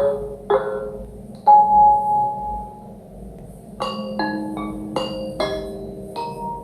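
Samsung Galaxy S25 Plus notification tones played slowed down: a three-note chime in the first second and a half, then, after a pause, a quicker run of about six notes that ends on a held note.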